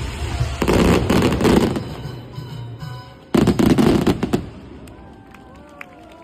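Aerial fireworks bursting: two volleys of booms with dense crackling, the first about half a second in and the second just past three seconds, after which the sound dies away.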